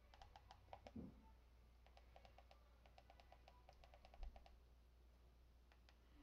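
Faint, sharp clicks of menu navigation on a Kodi media box, a few single ones and then a quick run of about seven a second as the menu list is scrolled, with a soft low bump in the middle.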